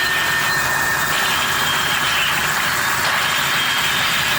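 Honda engine idling with its power steering pump running, just after the pump's feed-hose O-ring was replaced to stop it sucking in air. It is a steady running noise with a faint, high, steady tone.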